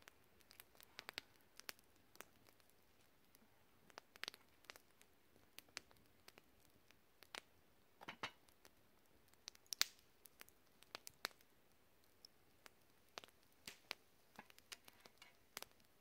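Campfire crackling faintly: scattered, irregular sharp pops and snaps from the burning wood, the loudest about ten seconds in.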